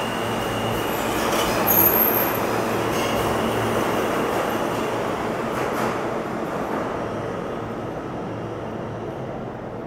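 R160-series subway train running through the station on steel rails, with a steady low motor hum and a brief high wheel squeal about two seconds in, then fading away as it leaves.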